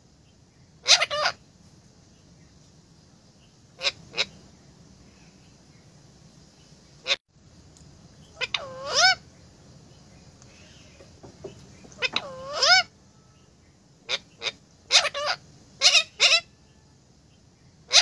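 Alexandrine parakeets calling: loud, harsh squawks in clusters of two to four every few seconds, with two longer calls that bend in pitch near 9 and 12 seconds in.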